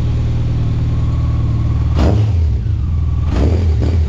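Honda Blackbird's inline four-cylinder engine running through a new Blackwidow aftermarket exhaust: a steady idle, with a blip of the throttle about halfway through and two quick blips near the end.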